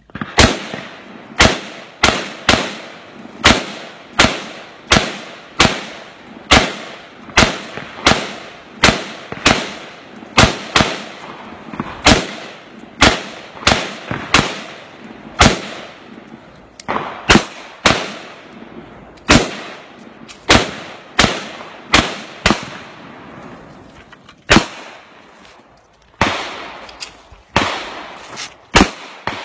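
AR-15 semi-automatic rifle fired shot after shot, several dozen rounds at an uneven pace of about one to two a second, each crack followed by a short echo, with a few longer pauses near the end.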